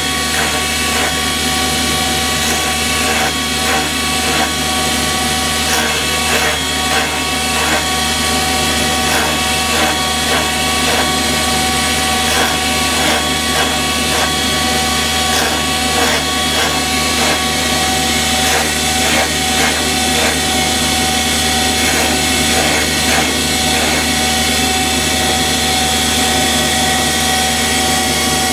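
Electric valve-grinding machine running steadily while its grinding stone grinds down a VAZ-21099 engine valve that is being turned slightly by hand. Faint ticks recur through the grinding.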